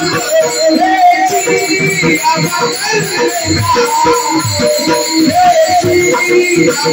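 Kirtan chorus: a group of men singing an abhang together, with small hand cymbals (taal) jingling in steady rhythm and regular pakhawaj drum strokes underneath.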